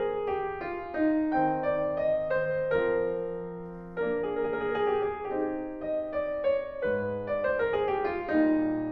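Background piano music: single notes and chords struck every half second or so and left to ring and fade.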